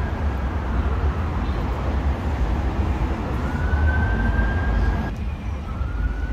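A siren wails faintly in slow rising sweeps over a steady low rumble of city traffic.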